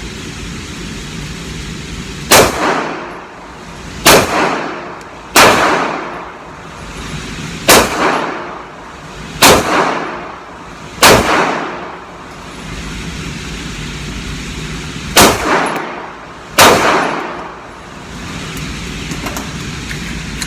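Eight shots from a Canik TP9SFx 9mm pistol fired at a slow, uneven pace, with a longer pause before the last two, each ringing out in an indoor range. The pistol cycles without malfunction on its replacement Glock 17/22 guide rod and recoil spring.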